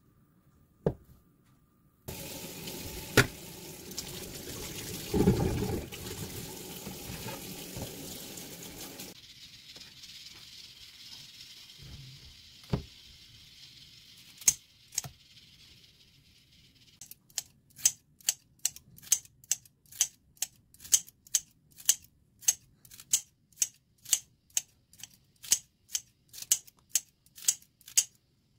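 Kitchen scissors snipping through kimchi into a frying pan, a crisp cut about twice a second through the second half. Before that, a single cleaver chop on a wooden board, then several seconds of steady running water and a few knocks.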